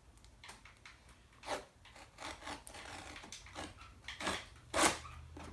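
Cardboard shipping box being opened by hand: a run of irregular scraping, rubbing and tearing noises, with a louder scrape or rip near the end.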